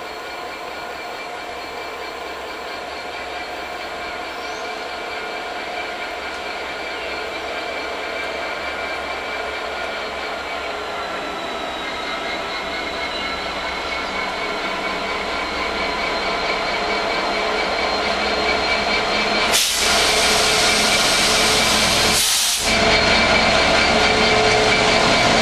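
EWS Class 66 diesel locomotive 66001, a two-stroke V12, approaching at the head of a freight train, its engine running steadily and growing louder as it draws near and comes alongside. About twenty seconds in, a loud hissing rush sets in for around three seconds.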